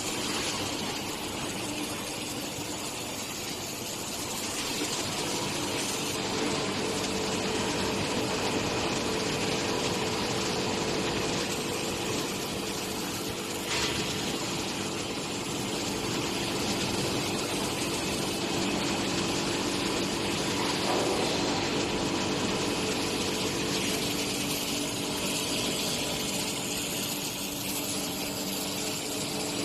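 Robotic arm welding machine running: a steady mechanical hum with an even hiss over it, and a brief click about fourteen seconds in.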